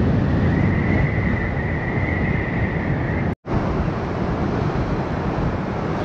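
Strong wind buffeting the microphone over the wash of surf, with a thin steady whistle through the first half. The sound drops out for an instant at a cut about three and a half seconds in.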